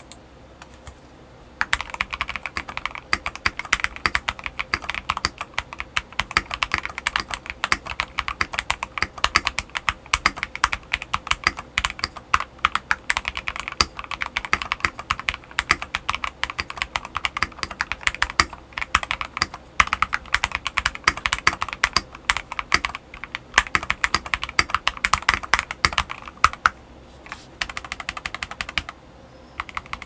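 Continuous typing on an EP84 mechanical keyboard fitted with Akko CS Silver linear switches and LTC LavaCaps KDA-profile double-shot PBT keycaps: a dense run of keystroke clacks that starts about two seconds in and pauses briefly twice near the end.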